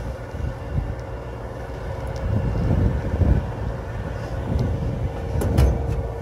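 Vehicle driving: a steady low rumble of engine and road noise with a faint steady hum and a few light clicks.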